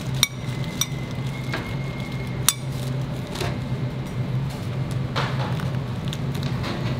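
Kitchen clatter of metal utensils and dishes: several sharp metallic clinks in the first few seconds and a couple of scraping sounds later, over a steady low hum.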